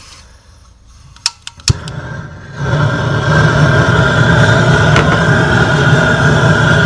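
A couple of sharp clicks, then a propane torch catching and running with a loud, steady roar as it lights the charcoal in the middle of the basket.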